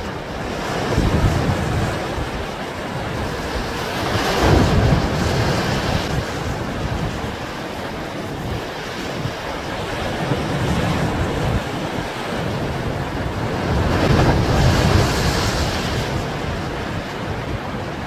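Rough sea surf surging and breaking over rocks, with strong wind buffeting the microphone as a low rumble. The wash swells louder twice, a few seconds in and again near the end.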